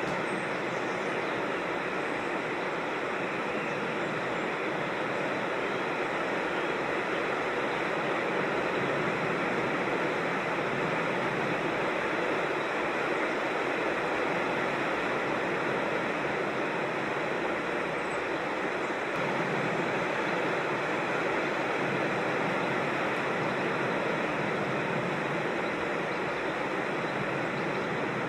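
Rushing water from a creek and small waterfalls, a steady, even rush with no breaks.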